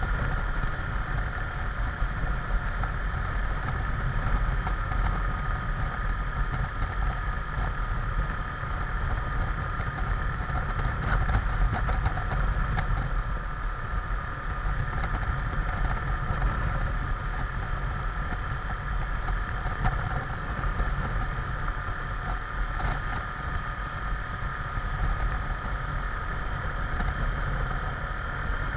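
Motorcycle engine running steadily at low road speed, heard from a camera mounted on the bike, with a deep rumble of wind and road noise underneath.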